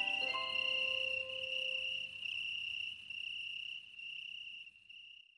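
Crickets chirping in a steady high trill as a night ambience, fading out near the end. A few chiming music notes ring and die away in the first couple of seconds.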